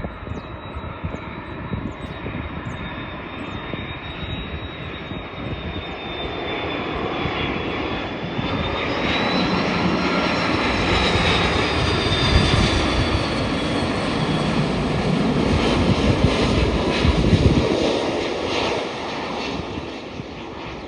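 Airbus A330 airliner's jet engines on landing approach: a steady roar with a high whine, growing louder as the plane passes close by about halfway through, then beginning to fade near the end.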